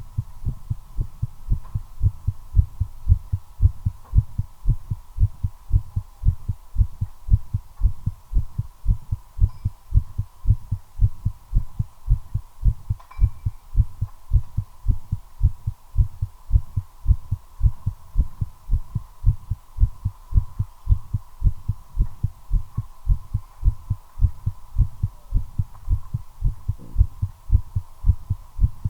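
Human heartbeat, a regular train of low thumps, quickened by nicotine while the person smokes a cigarette, as the uploader has it.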